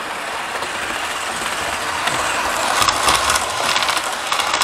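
Model railway train running past close by: a steady electric motor and wheel whirr that swells to its loudest about three seconds in. A rattle of clicks from the wheels on the track comes around the loudest point and again near the end.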